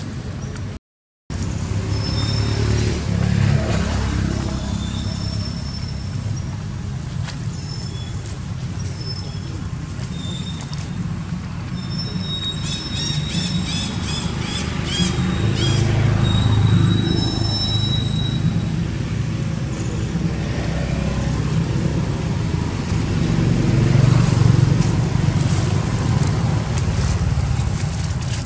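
Steady low outdoor rumble, like distant road traffic or wind on the microphone, with scattered short high chirps and a quick run of repeated chirps about halfway through.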